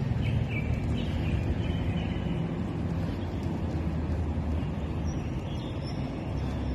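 Steady low outdoor background rumble with a few faint, short high chirps about half a second to two seconds in and again near the end.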